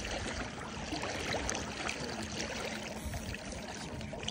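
River water lapping and trickling around a boat as a large sturgeon rolls at the surface beside it: a steady gentle wash with small splashes.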